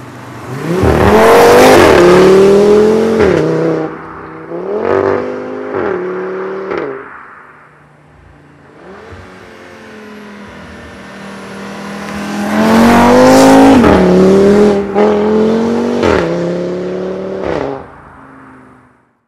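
Audi RS3 8P's turbocharged five-cylinder engine through a Bull-X EGO-X catback exhaust, accelerating hard twice. Each time the pitch climbs through the gears with a drop at each of about three upshifts, and it is quieter between the two runs. It fades away near the end.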